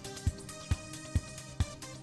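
Electronic background music with a steady kick-drum beat, a little more than two beats a second.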